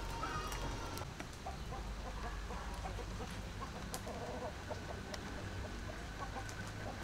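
Chickens clucking in short repeated notes, with a few sharp knocks of a knife on a wooden chopping board.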